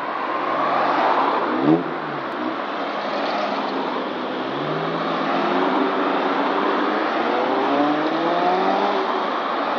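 A line of older cars driving past one after another, engines accelerating over tyre and road noise. About two seconds in, one car passes close with a quick rise and fall in engine pitch, and later another engine climbs steadily in pitch as it accelerates.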